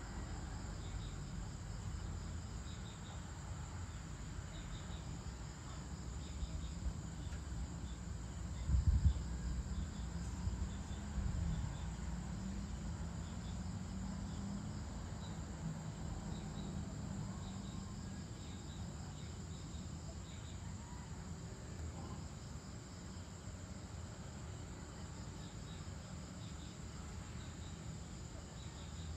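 Evening insect chorus: crickets trilling steadily and high, with fainter pulsing chirps below them. Under it runs a low background rumble that swells briefly into a low thump about nine seconds in.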